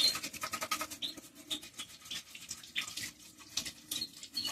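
A brush scrubbing a washing-machine part in fast back-and-forth strokes, working at grime that is slow to come off.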